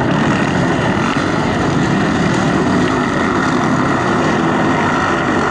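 Many dirt bike engines revving together as a large pack of hard enduro riders climbs a rocky hill. The sound is a dense, steady blend of overlapping rising and falling engine notes.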